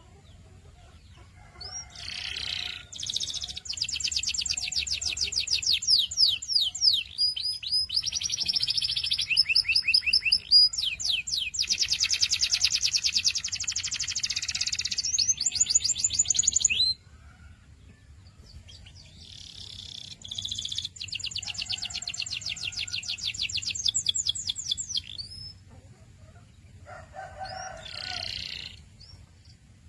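Domestic canary singing long, fast trills of rapidly repeated high notes, one tour running into the next. The song stops for a couple of seconds partway through, then starts again.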